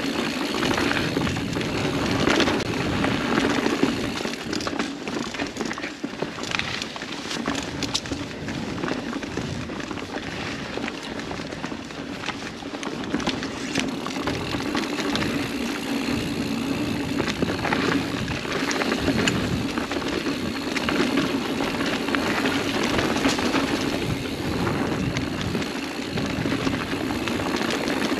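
Mountain bike rolling fast down a dirt singletrack: steady tyre and rushing noise, with scattered clicks and rattles from the bike over bumps.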